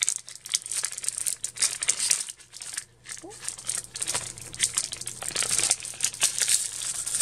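Yu-Gi-Oh! booster pack wrapper being crinkled and torn open by hand: a dense run of crackly crinkling, with a brief lull a little after two seconds in.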